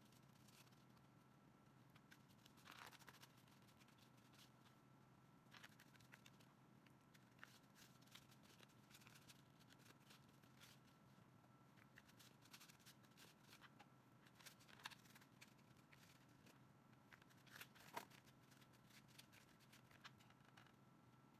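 Near silence: room tone with a faint steady hum and scattered faint clicks and light taps of handling.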